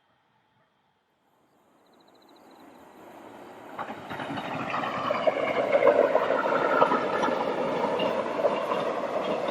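Train approaching and running past on the rails, rising from silence over a few seconds to a steady loud rumble of wheels, with scattered clicks over rail joints and faint high squealing tones.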